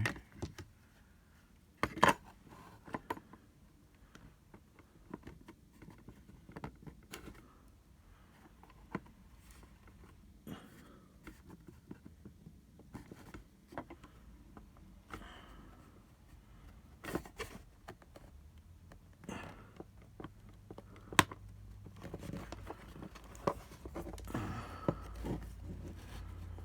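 Hand-work on a small plastic charger case and cable: scattered clicks, taps and light scrapes of parts and tools being handled, with a sharp click about two seconds in and another around twenty-one seconds.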